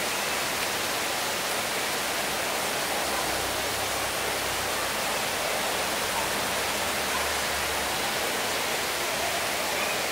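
Heavy rain pouring down in a steady, dense hiss, with no breaks or separate impacts.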